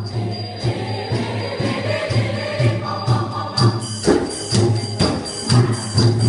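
School choir singing in harmony during a rehearsal, over a steady rhythmic low beat. Sharp percussive strikes join the beat about three and a half seconds in.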